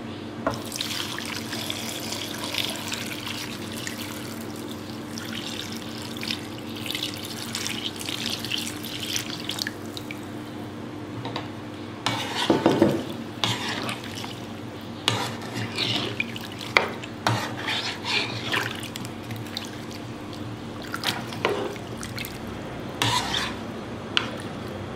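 Coconut milk being poured into a pan of cut potatoes and spices with a steady splashing hiss, then, about halfway through, a wooden spatula stirring the liquid and knocking and scraping against the pan in short irregular strokes.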